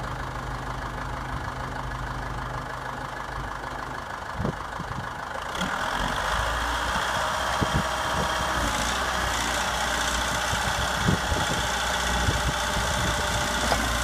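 Case 590 Super M backhoe's diesel engine running at idle. About five and a half seconds in it grows louder and fuller, with a few short clunks.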